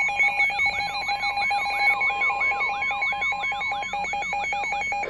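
Emergency Alert System alert tone: a loud electronic alarm of steady high tones layered with a warbling sweep that repeats about three times a second.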